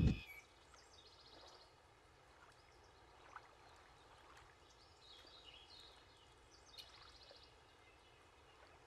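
Faint birdsong: a few short, high trilled phrases over a quiet background hiss.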